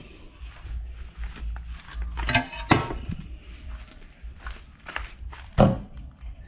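Several knocks and scrapes of mud-brick formwork blocks being worked loose from setting concrete; two louder knocks, one near the middle and one near the end, over low rumbling handling noise.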